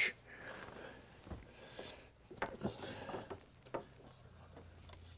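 Faint handling sounds: a few light wooden knocks and rubs as the top clamp of a wooden studio easel holding a canvas is handled.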